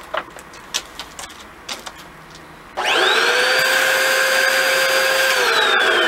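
A few light clicks and taps, then a Bissell AirSwivel upright vacuum switches on about halfway through: its motor whine rises quickly and holds steady over loud rushing air, with a puff of air from the airflow indicator valve on top of the canister, the sign that something is blocked. Near the end the whine starts to fall in pitch.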